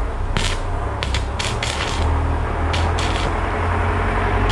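Stick-welding arc from a welding inverter being struck: a string of sharp crackling pops, bunched in the first two seconds and again around three seconds in, over a steady low hum.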